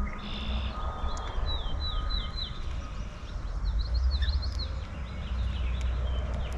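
Small songbirds chirping in quick series of short, high, slurred notes, several in a row, then more from other birds. A steady low rumble runs underneath.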